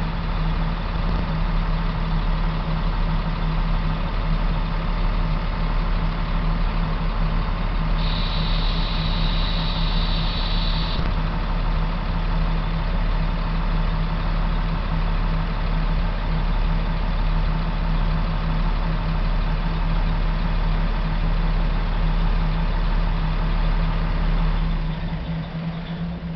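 KiHa 47 diesel railcar engine idling steadily with a strong low hum. A high-pitched steady tone sounds for about three seconds a third of the way in. Near the end the engine begins to wind down as it is shut off.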